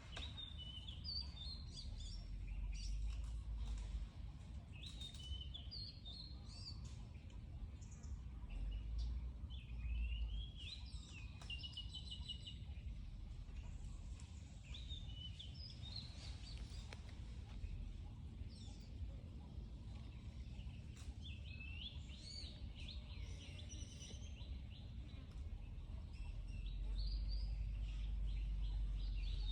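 Small birds chirping and calling in short repeated phrases throughout, over a low rumble that swells at times.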